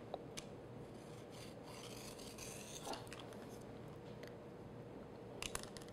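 Faint rasp of a pizza-cutter wheel rolling through thin puff pastry along a wooden ruler, loudest from about a second and a half to three seconds in, with a few light clicks.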